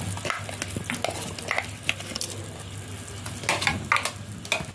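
A pan of broth with chopped garlic, salt and pepper heating on the stove, hissing and bubbling, with scattered light clicks and taps.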